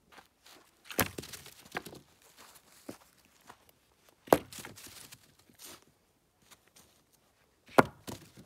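Three sharp knocks about three and a half seconds apart, each followed by a short crackle, with faint rustling between.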